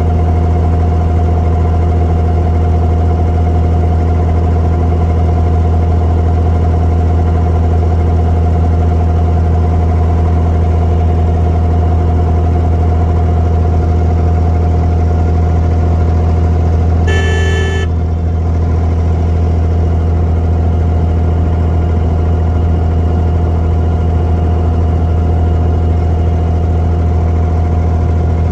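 Abra water taxi's inboard diesel engine running steadily as the boat crosses the creek, a constant low drone. A brief tone sounds once, about seventeen seconds in.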